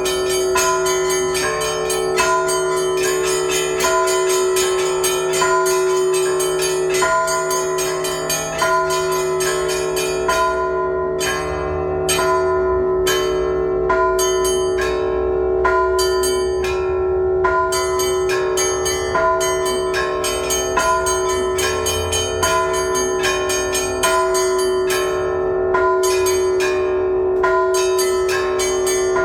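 Russian Orthodox church bells rung in a continuous peal: quick repeated strikes of the smaller bells over the steady ringing of the larger ones.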